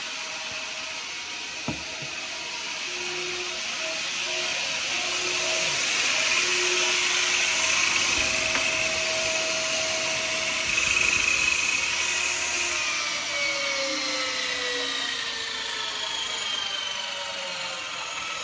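Performix 10-inch table saw running with a steady whine, its blade cutting through wood with a rising hiss from about four to twelve seconds in. The motor's pitch then falls steadily as the saw winds down near the end.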